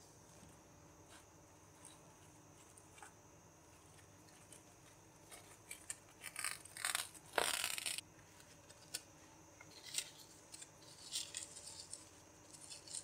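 Plastic cling film crinkling as it is unrolled over a slab of dough, with one louder rip about seven and a half seconds in, then more crackling as it is pressed down around the dough. The first few seconds are nearly quiet.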